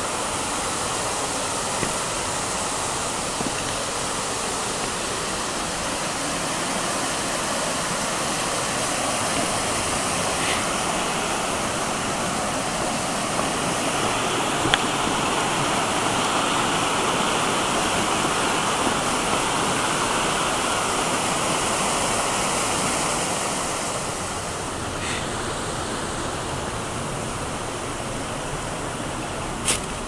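Steady rush of a mountain stream pouring over rocks at a small waterfall about a metre high. It grows a little louder midway and eases about three quarters of the way through, with a couple of sharp knocks at the very end.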